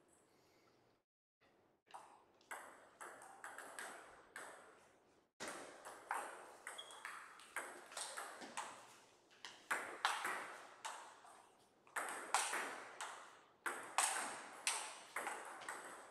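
Table tennis rally: the celluloid-type plastic ball clicking sharply off the bats and the table, one click after another, each with a short ringing tail. A few quieter clicks come first, then from about five seconds in a quick, uneven run of louder ones.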